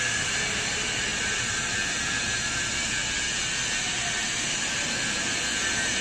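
Steady hiss and hum of the Y81-160 hydraulic scrap metal baler's power unit running, with an even, unchanging level.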